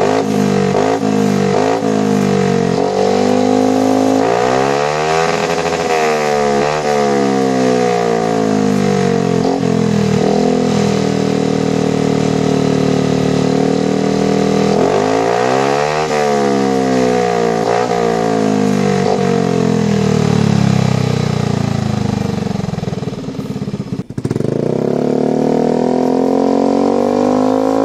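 Yamaha NMAX scooter's single-cylinder four-stroke engine running through an imitation BEST3 aftermarket slip-on exhaust, revved up and back down twice, about four seconds in and again about fifteen seconds in. Near the end the sound briefly dips and then carries on.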